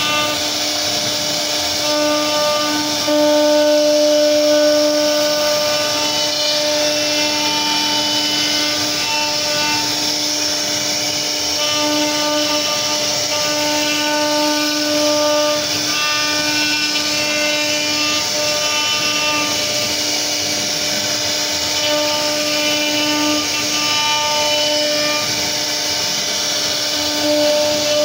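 CNC router spindle running steadily as its bit routs a scroll carving into a wooden board: a steady whine that fades and returns every second or two, over the rasp of the cut.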